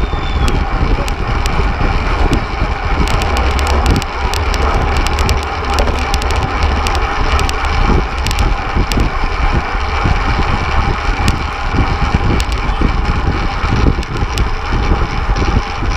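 Steady wind rumble buffeting the microphone of a camera mounted on a fixed-gear racing bicycle at race speed, with road noise and scattered sharp clicks and rattles from the bike.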